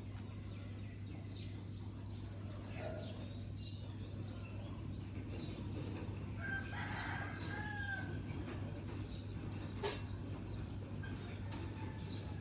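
Birds calling: brief high chirps come and go, and one longer call about six seconds in holds a note and then drops, over a steady low hum.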